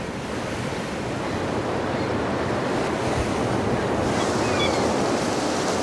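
Black Sea surf breaking and washing up on a sandy beach: a steady rush of waves that swells gradually over the first few seconds.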